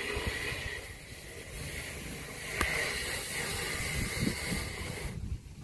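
Quiet outdoor background: a low, uneven wind rumble on the microphone and a faint steady hiss, with one small click about two and a half seconds in.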